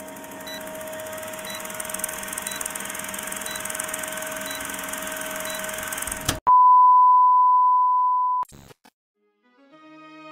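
Film countdown leader sound effect: a steady hiss and hum with a short tick once a second, then a loud steady beep lasting about two seconds that cuts off abruptly. After a brief silence, soft music begins near the end.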